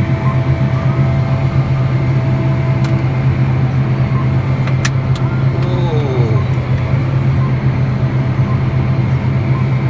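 An engine running steadily, giving a constant low drone with no change in speed.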